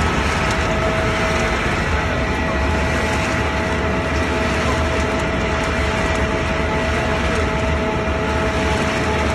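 Wood pellet production line machinery running steadily, a loud continuous industrial din with a few steady whining tones over it.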